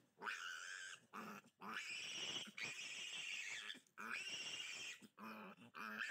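Three-day-old piglet squealing in a run of long, high squeals, one after another, while it is held and restrained for tail docking.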